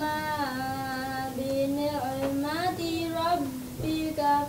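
A girl's voice chanting Quran recitation in Arabic, in melodic tajweed style: long held notes that bend and wind between pitches, in drawn-out phrases with brief breaths between them.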